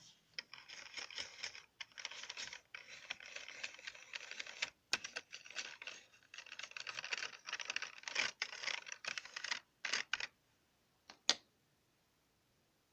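Computer keyboard keys clicking in fast, dense runs of typing and tapping, with brief pauses. The clicking stops about ten seconds in, leaving a couple of lone clicks and then quiet.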